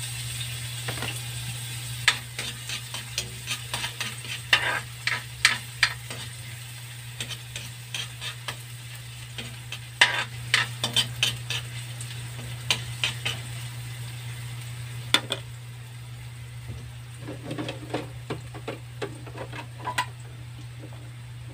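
Chopped garlic sizzling in hot oil in a steel wok, with a metal spoon scraping and clicking against the pan as the garlic is stirred. The clicks come in irregular runs over a low steady hum.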